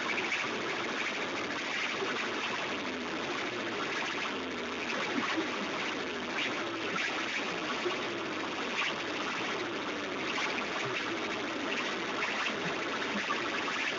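Large DJ sound systems playing at full volume in a sound-system competition. The phone microphone is so overloaded that the music comes through as a steady, dense, distorted buzz with no clear tune or bass.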